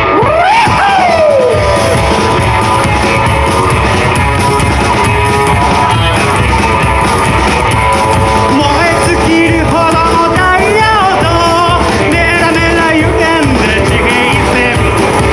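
Live rockabilly band playing loudly, with guitar and drums. A voice rises and falls in a cry near the start, and a singer comes in about eight or nine seconds in.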